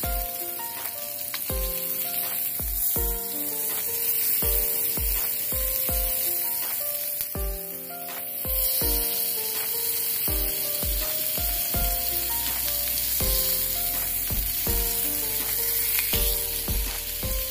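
Swordfish steaks sizzling steadily in hot olive oil in a frying pan, heard under background music with a melody and a regular beat.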